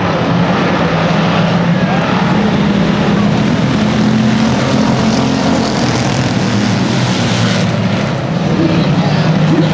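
A pack of hobby stock race cars running laps on a dirt oval: a loud, steady engine drone that wavers in pitch as the cars go around.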